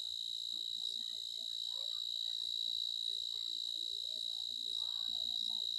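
Steady, unbroken high-pitched insect chorus, with faint distant voices underneath.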